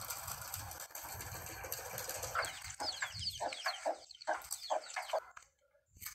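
Chickens clucking in a quick run of short calls, starting a little over two seconds in, over a steady outdoor hiss.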